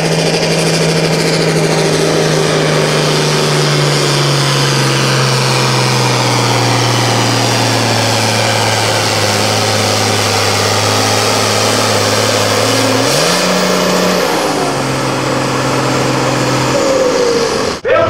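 Turbocharged diesel engine of an International farm tractor pulling a weight-transfer sled at full throttle, its pitch slowly falling as it lugs down under the growing load. About thirteen seconds in it briefly revs up, drops back, and the engine note falls away near the end.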